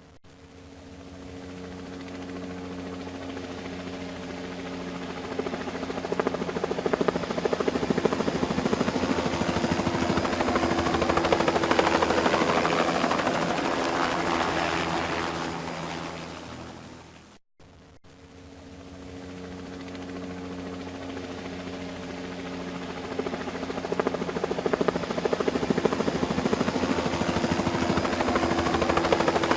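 Helicopter passing overhead, its rotor chopping rapidly over the steady turbine and engine tones. It grows louder to a peak about twelve seconds in and fades away. After a brief gap the same passage starts again and builds toward the end.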